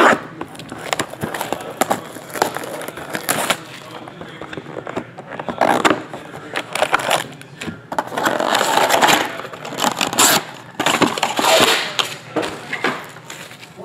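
A sealed trading-card hobby box being unwrapped and opened by hand: a sharp crack as the shrink-wrap is broken, then crinkling plastic, scraping cardboard and rustling packaging. The rustling is loudest and densest in two stretches, about eight to ten seconds in and again around eleven seconds in.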